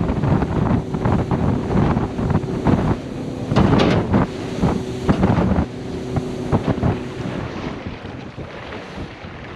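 Boat running at speed over chop: a steady engine drone under rushing wind on the microphone and irregular slaps of the hull on waves. The engine tone drops away about seven and a half seconds in, leaving wind and water.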